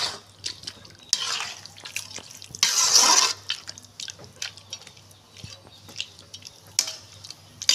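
A ladle stirring a watery chicken curry in a metal kadai, freshly thinned with water: two longer wet swishing strokes about one and three seconds in, with light clicks and taps of the ladle against the pan throughout.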